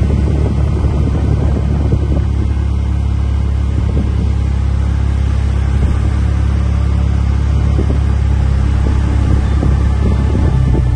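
Steady low rumble of wind buffeting the microphone, mixed with the wash of small waves breaking on a sandy beach.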